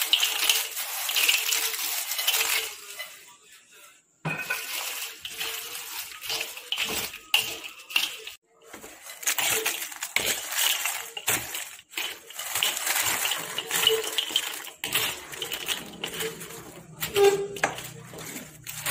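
Broken Marie biscuits tipped from a glass bowl into thick melted chocolate in a wok and stirred in: a run of light clatters, clinks and scrapes, broken by two short silences about four and eight seconds in.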